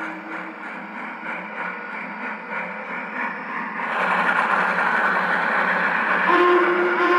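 Lionel Vision Line 2-10-10-2 O-scale model steam locomotive's sound system: rhythmic steam chuffing that grows louder about four seconds in. Its steam whistle starts blowing near the end.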